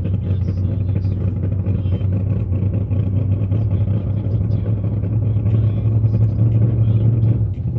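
Engine running steadily at an even low pitch, with no revving, growing a little louder near the end.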